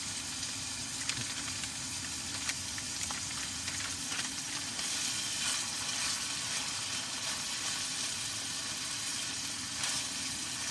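Shredded pork, garlic and hotpot seasoning sizzling in a hot oiled pan while being stir-fried, with occasional clicks of the spatula against the pan.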